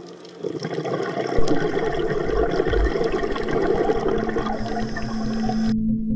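Rushing, bubbling water noise with a few deep rumbles over soft ambient music. It cuts off abruptly near the end, leaving a steady held music tone.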